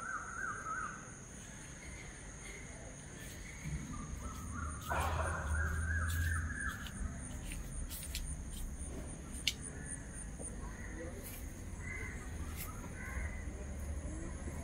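Crows cawing outdoors at dusk, a burst of calls at the start and another about five seconds in, over a steady high-pitched whine.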